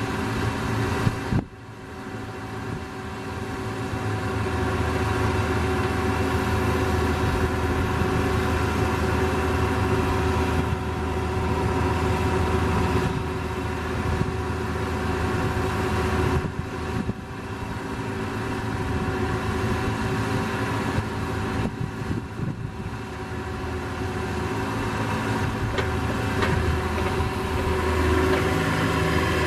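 Excavator's diesel engine running steadily, with a sharp brief drop in level about a second and a half in and a few shallower dips later.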